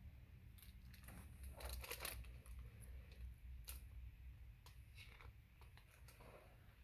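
Faint rustling and crinkling of a hardcover picture book being handled, its cover opened and pages turned, in several short bursts over otherwise near silence.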